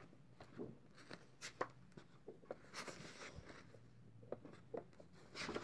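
Faint rustling of sheets of drawing paper being lifted and turned by hand, with scattered small ticks and crinkles and a couple of brief rustles.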